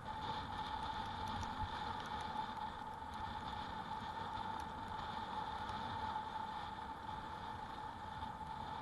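Steady wind and tyre noise from a bicycle being ridden, with an even whine held at one pitch over it.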